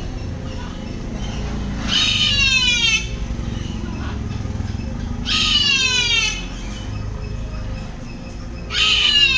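A parrot calling three times, a few seconds apart: harsh calls of about a second each, falling in pitch.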